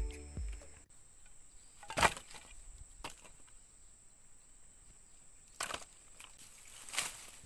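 A handful of sharp, separate wooden knocks from charred firewood sticks being handled and laid on a pile, the loudest about two seconds in. A steady high insect whine runs underneath.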